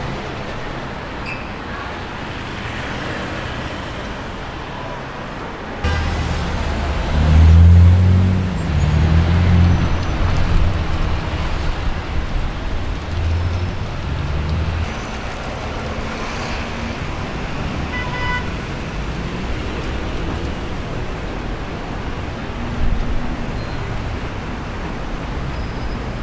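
Car engines in city street traffic. About six seconds in, one engine comes in loud and is revved, rising and falling in pitch for several seconds. Steady traffic noise follows.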